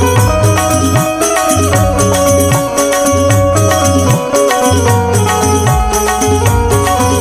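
Instrumental interlude of a Marathi devotional bhajan: an Indian keyed banjo (bulbul tarang) playing the melody over a repeating hand-drum beat with gliding bass strokes.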